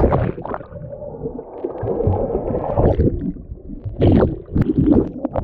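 Rough sea water heard underwater through a submerged microphone: a muffled, mostly low water noise, with a couple of brief splashes about four seconds in.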